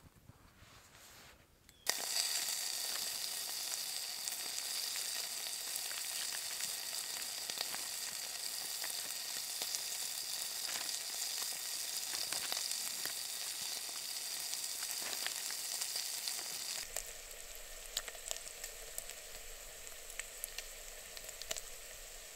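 Bacon frying in a small metal pot: steady sizzling with small spitting crackles, starting suddenly about two seconds in and getting quieter for the last few seconds.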